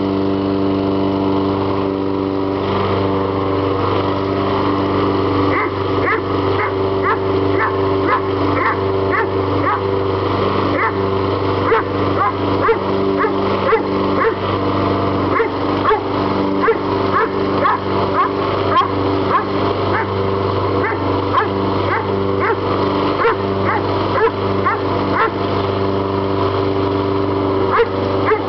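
Lawnmower engine running steadily while a Doberman barks and yips at it, quick repeated barks starting about five seconds in and going on to the end.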